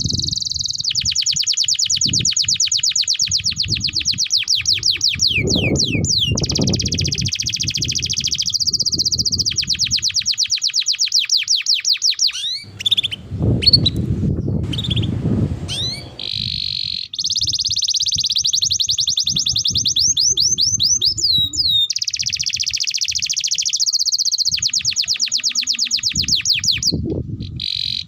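Domestic canary singing a long, continuous song of fast trills of repeated high notes and a few sweeping whistles. About halfway through the song breaks off for a few seconds and a low noise takes over before the trills resume.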